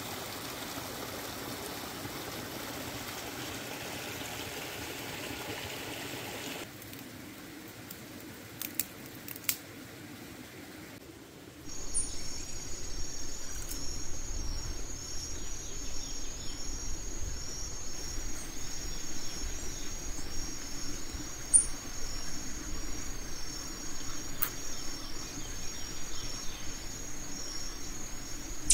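A small forest stream running over rocks, then, from about twelve seconds in, a steady high-pitched pulsing chirr of insects with a low rumble underneath. A few sharp clicks are scattered through.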